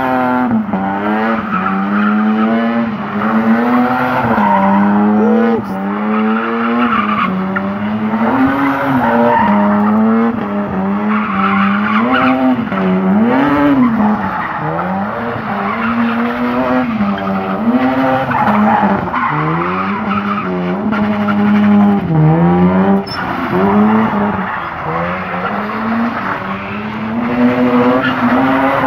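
Toyota Verossa's 1G-FE two-litre straight-six engine revving up and down over and over as the car drifts, with tyres squealing and skidding on the asphalt.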